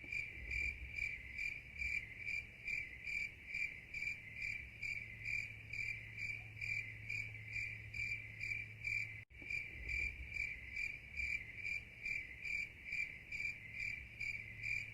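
Crickets chirping steadily, about two chirps a second, over a faint low hum, with a momentary break a little after nine seconds.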